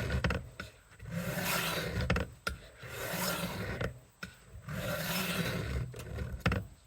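Victorinox kitchen knife edge being drawn along a wet coarse sharpening stone, giving a gritty rasping scrape. There are four long, even strokes, each about a second and a half, with short pauses between them.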